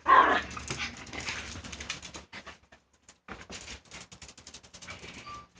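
A puppy gives one loud bark at the start, followed by a run of quick clicking and scratching sounds as it works at the container holding its balls.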